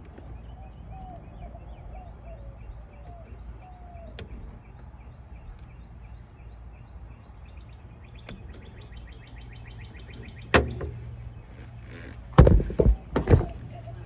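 Birds chirping faintly over a steady low hum. About ten seconds in comes a sharp knock, then a cluster of louder knocks and clunks near the end as the phone is handled by the unit's sheet-metal cabinet.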